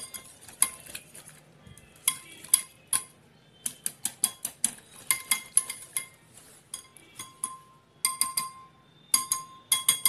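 Metal wire whisk beating butter and eggs in a glass tumbler: quick clinks of the wire against the glass in bursts with short pauses between, the glass ringing briefly after the harder strikes.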